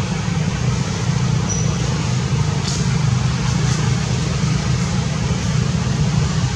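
Steady low rumbling noise with a hiss above it, with a few faint clicks around the middle.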